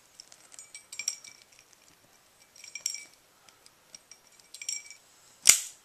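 Zippo lighter being handled through a flip trick: a run of light metallic clinks and rattles with a faint ringing tone from the metal case, then one loud, sharp click of the lid near the end.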